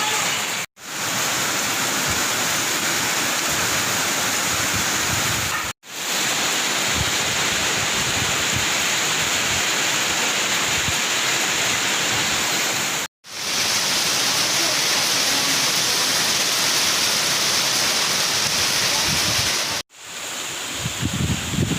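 Rain falling steadily, a dense even hiss of water. It cuts out briefly four times and fades straight back in each time.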